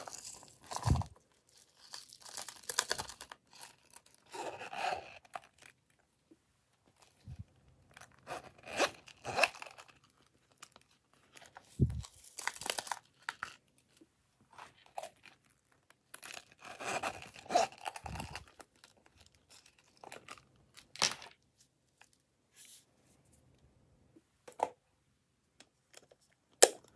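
Small plastic novelty containers being handled and shaken, with sequins, confetti and glitter rattling and crinkling as they pour into a glass dish, in irregular bursts with quiet gaps. A few hard knocks of plastic on glass or on the table come through, about a second in and again around twelve and eighteen seconds in.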